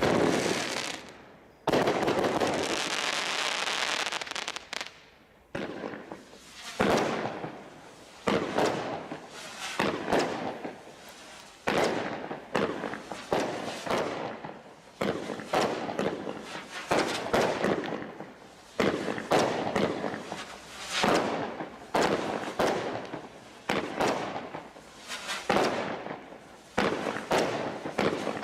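Consumer firework cakes from a Bright Star Desert Storm Crate barrage pack firing shot after shot, each a sharp bang trailing off, about one to two a second. A few seconds of continuous hissing crackle near the start.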